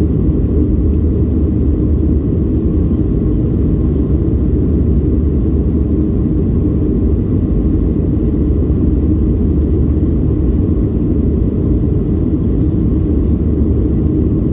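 Steady low drone inside the cabin of a Boeing 737-800 in the climb after takeoff: the CFM56-7B turbofans and the airflow past the fuselage, heard through the cabin wall.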